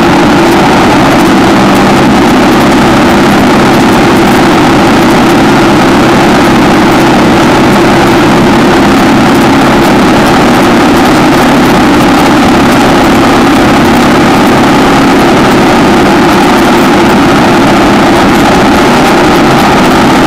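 1960 AJS 650 parallel-twin motorcycle engine running steadily under way.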